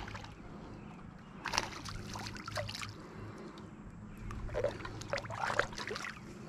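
Light water splashes and trickles while a small smallmouth bass is handled and unhooked at the river's surface, in two short spells of quick splashy strokes, one about one and a half seconds in and another around five seconds.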